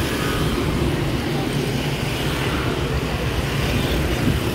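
Steady street traffic noise: a continuous mix of passing vehicle engines and tyres.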